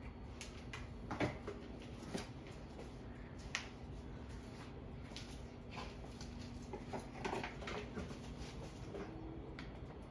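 Scattered light clicks and taps of small metal parts on a ceiling fan's switch housing and light kit as they are handled and fitted. There are sharper clicks at about one, two and three and a half seconds in, and a small cluster of them near seven seconds.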